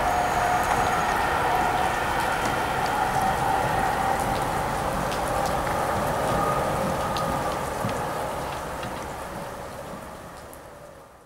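ICE 3 (class 403) electric high-speed train moving away: a steady electric whine over a hiss of rolling noise, growing fainter as it draws off and dying away near the end.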